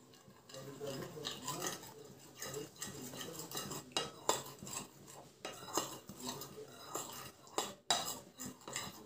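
A utensil stirring flour into thin batter in a bowl, with irregular clinks and scrapes against the bowl's sides and a few sharper clicks.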